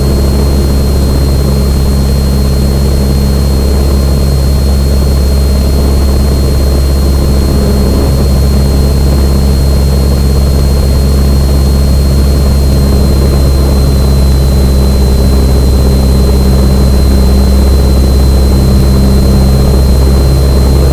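Cessna 172N's four-cylinder Lycoming piston engine and propeller droning steadily on the approach to landing, heard from inside the cabin, with a thin steady high whine over it.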